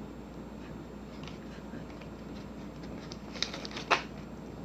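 Faint handling of an opened paper microwave-popcorn bag, with two short crinkles about three and a half and four seconds in.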